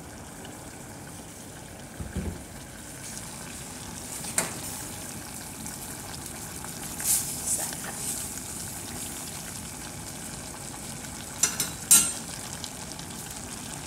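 Chicken pieces frying in a little oil in a stainless steel pot: a steady sizzle, broken by a few sharp clicks, the loudest about two seconds before the end.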